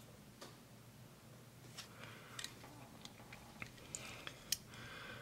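Faint, scattered clicks and light handling noise from a Leatherman Signal multi-tool being handled, its metal parts ticking against each other and the hands.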